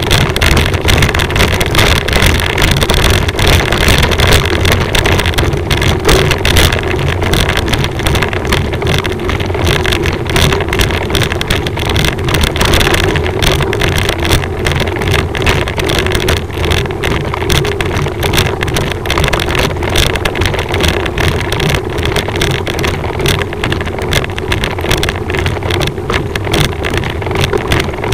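Continuous loud wind buffeting and rumble on the microphone of a camera moving along the road, with a steady drone underneath.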